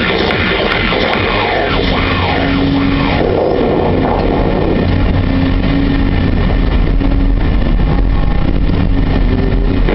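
Background music with held notes over a steady low hum.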